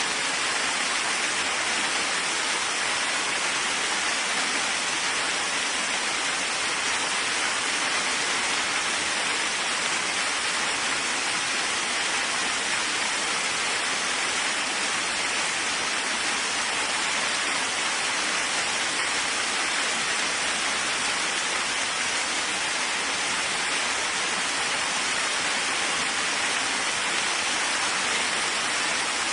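Steady rain: an even, unbroken hiss that neither swells nor fades, with no single drops or thunder standing out.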